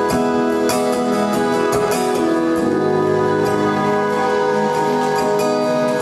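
Live band music: strummed acoustic guitar with electric guitar and drums, the chords held and ringing.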